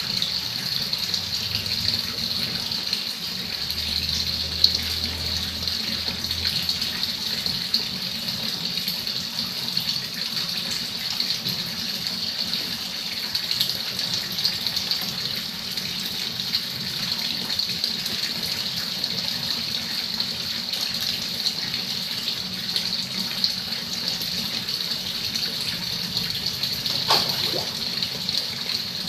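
Steady splashing of a stream of water pouring from a tap into a shallow pond.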